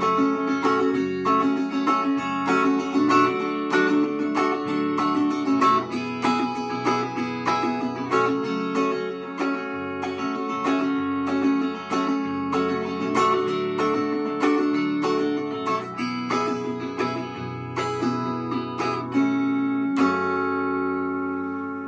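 Instrumental ending of a Russian rock song: guitar picking and strumming chords. About twenty seconds in, a last chord is struck and rings out, fading.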